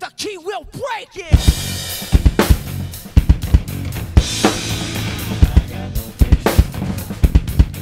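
Acoustic rock drum kit played along to a hard-rock track. The kit drops out for about a second at the start, leaving a wavering pitched line from the backing music. It then comes back in with steady bass drum, snare and cymbal hits.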